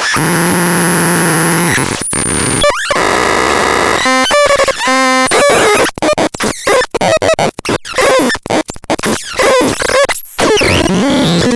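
Belzebulon R noise synth making harsh electronic noise: held buzzing tones give way to warbling, sweeping tones and then fast stuttering, chopped bursts, with a brief dropout near the end.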